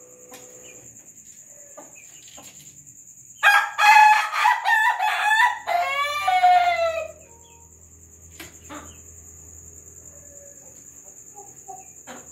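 Ayam ketawa rooster crowing once, starting about three and a half seconds in. The crow lasts nearly four seconds and is broken into rapid, chuckling notes typical of the breed's laughter-like crow, ending on a falling note.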